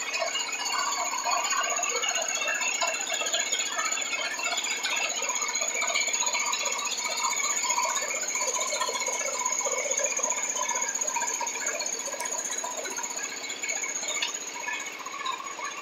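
The 19 HP V-twin engine of a Hayter Heritage 19/42 ride-on mower running steadily, with a steady high whine over the engine note.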